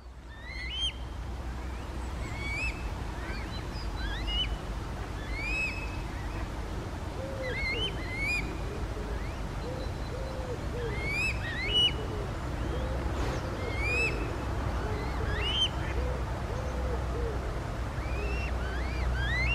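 Birds singing short, rising whistled phrases every second or so, over a low hooting call repeated about once a second and a steady low rumble.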